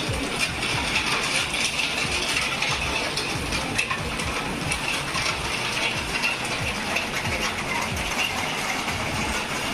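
Steady rain tapping on roofs: a dense, irregular patter of drops striking hard surfaces.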